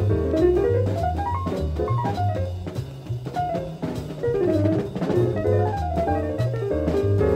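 Jazz music: drum kit and bass keep a steady beat under a lead melody that runs up and down in quick notes.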